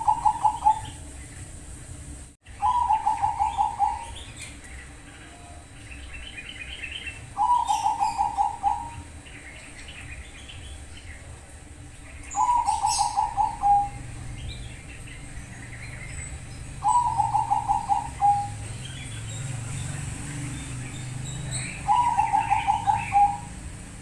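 Bangkok-line zebra dove (perkutut) cooing: five rolling coo phrases, one about every five seconds, each a quick run of repeated notes lasting about a second and a half. Faint higher chirps from smaller caged birds come between the phrases.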